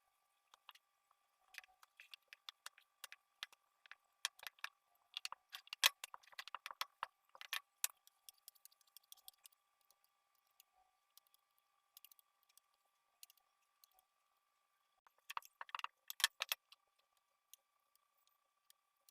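Irregular runs of light clicks and taps from a knife on a cutting board as chin chin dough is cut into small pieces, busiest about four to eight seconds in and again near the end. A faint steady high hum runs underneath.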